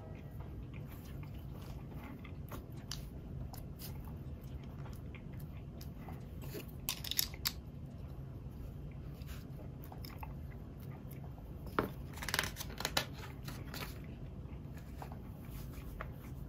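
Plastic building-block pieces being handled and pressed together: scattered small clicks and crackles over a steady low hum, with two louder flurries of clicking about seven seconds in and again around twelve to thirteen seconds.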